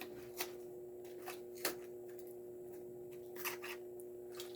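Faint clicks and crinkles of a toy car's plastic blister package being handled, a few scattered snaps over a steady low hum.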